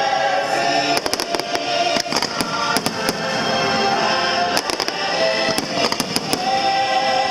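Fireworks bursting with sharp bangs and crackles in quick clusters of several reports, over loud show music playing through the park's speakers.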